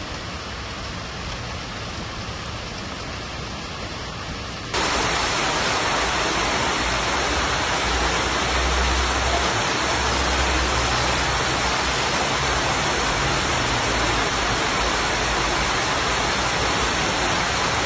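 Heavy rain hissing steadily. About five seconds in it cuts to a louder, fuller rush of floodwater cascading down a flight of steps.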